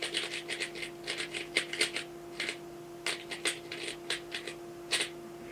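3x3 Rubik's cube being turned by hand, its plastic layers clicking and scraping in quick, irregular runs of turns, as when a scramble is applied.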